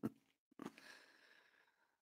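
A man's quiet laugh ending in a last short huff, then a soft breathy exhale about half a second in that fades away.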